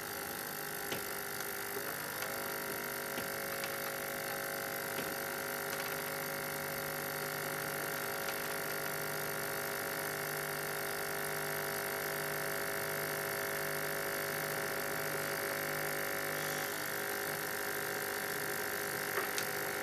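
Small vacuum pump for a BGA rework station's pickup tool running with a steady hum, mixed with the station's heater blower, with a few faint ticks.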